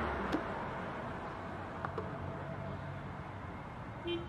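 Jet engine noise of an Airbus A320neo with CFM LEAP-1A engines, heard as a steady rush that slowly fades away as the aircraft moves off. A short high beep sounds near the end.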